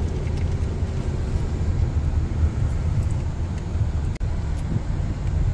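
A car driving on the road: steady low rumble of engine and road noise, with a brief dropout about four seconds in.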